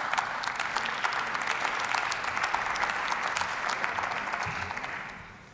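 Applause from members of parliament in the plenary hall, steady at first, then dying away near the end.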